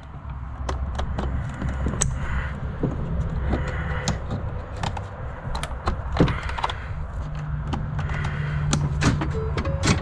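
Plastic door wiring connectors and trim being handled and plugged back in: a scatter of sharp clicks, taps and rattles over a steady low hum.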